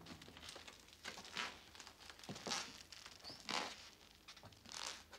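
Rustling and scuffing from people moving in their clothes and gear in a small room: a string of short scrapes and rustles, about one every second.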